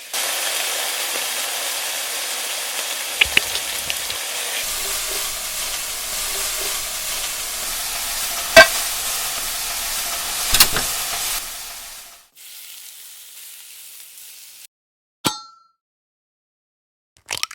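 Food sizzling in a frying pan, with a few sharp knocks and clicks of utensils; the sizzle dies away about twelve seconds in, a fainter hiss lasts a little longer, and a few separate clicks follow.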